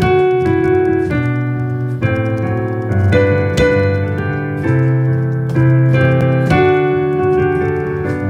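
Piano-sounding keyboard playing a slow instrumental folk tune: sustained chords over held bass notes, changing about once a second.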